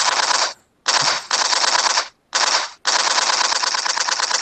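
Recorded automatic machine-gun fire played as a sound cue, in several short bursts a fraction of a second apart and then a longer burst near the end. It is the show's signal that the daily tactical pop quiz is starting.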